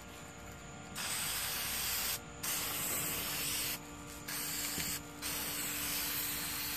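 Krylon Glowz aerosol spray paint can spraying a light coat in four hissing bursts with short breaks between, starting about a second in.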